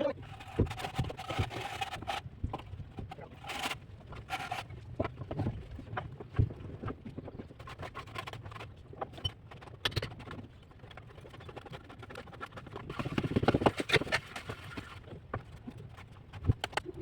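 Plastering trowel working cement-sand mortar on a brick wall: irregular sharp taps and knocks with scraping, and a denser stretch of scraping about thirteen seconds in.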